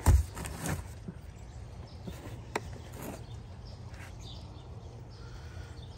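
A few knocks and clicks, the loudest right at the start and a sharp click about two and a half seconds in, over a faint steady hum.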